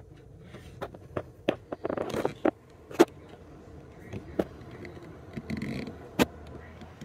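Scattered sharp clicks and knocks, with two short scraping rustles about two seconds in and near six seconds, over a faint low hum.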